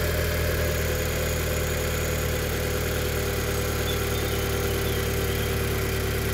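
Audi 2.0 TFSI turbocharged four-cylinder engine running steadily at a raised cold idle while it warms up, just after a new camshaft and timing chain were fitted. The idle is beginning to drop, and the engine sounds good.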